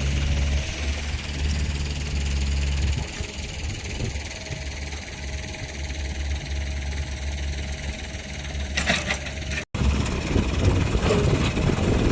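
Mini excavator engine running steadily. About ten seconds in the sound breaks off for an instant, then comes back louder and rougher.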